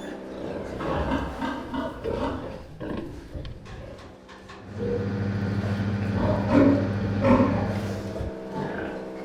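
Farmed pigs grunting and squealing, with two louder squeals about six and a half and seven and a half seconds in, over a steady mechanical hum that swells partway through.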